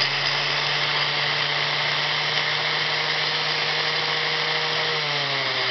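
Old DWT angle grinder's electric motor running at a steady speed. Its new Chinese carbon brushes are still bedding in against a worn armature commutator. Its pitch sags slightly near the end.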